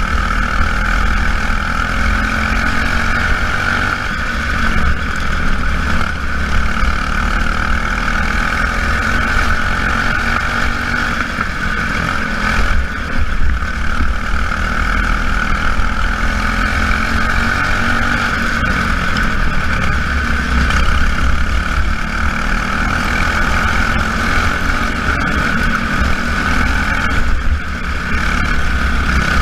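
Small junior race cars' engines running at speed in a race. There is a steady high-pitched drone, and pitches slide up and down over several seconds as cars pass, over a low rumble.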